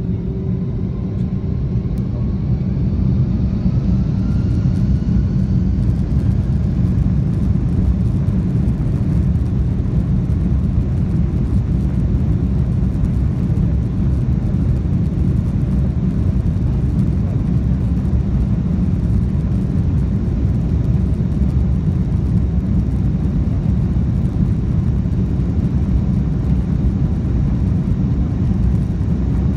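Airbus A330-200 jet engines heard from inside the cabin while the airliner taxis. A rising whine comes in over the first few seconds as the engines spool up, then a steady, loud rumble continues.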